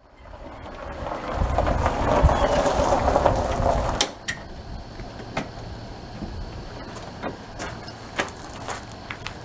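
Golf cart rolling over gravel toward the microphone, tyres crunching, then stopping about four seconds in. After that a low steady hum, with footsteps crunching on gravel.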